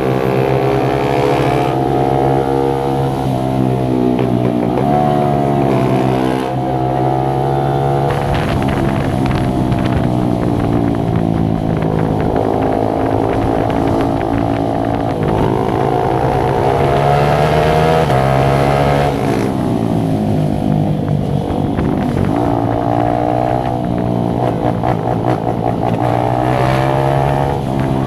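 Motorcycle engine running with a steady low note underneath, its revs rising and falling in long sweeps every few seconds.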